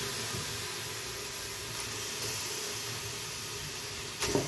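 Steady hiss, with one soft slap about four seconds in as a handful of raw beef tripe pieces is dropped into an aluminium pressure cooker.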